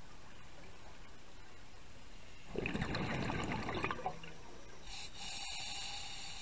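Scuba breathing heard underwater through the regulator: about two and a half seconds in, a bubbling exhalation of about a second and a half, then a steady hissing inhalation through the regulator starting about a second later.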